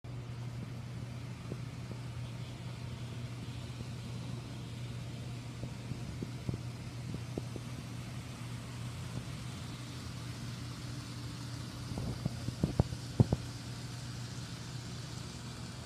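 N scale model trains running on the layout's track: a steady low hum with scattered light clicks of wheels over rail joints. The clicks come loudest in a quick cluster late on, as a passenger train passes close by.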